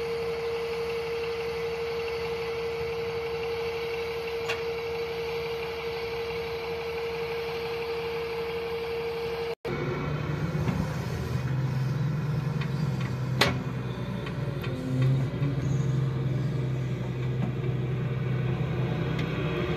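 Daewoo wheeled excavator's engine running steadily, with a steady whine over it for the first half. After a brief break about halfway, it continues as a lower steady hum, with a sharp click a few seconds later.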